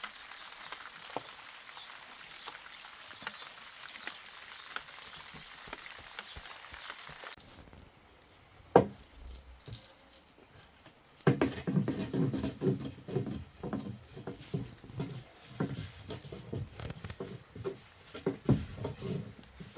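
Rain pattering steadily, cutting off after about seven seconds. After a sharp click, irregular knocking and clattering follow for the rest.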